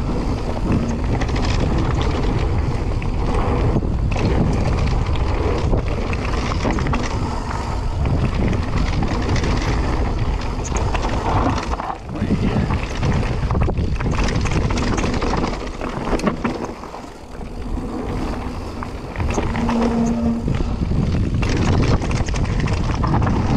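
Mountain bike descending a loose dirt-and-gravel trail: steady wind rush on the camera microphone mixed with tyre noise and the bike rattling over the bumps.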